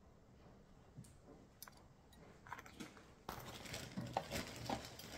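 Jewelry being handled on a table: a few faint clicks, then from about three seconds in a busier rustling with small clicks.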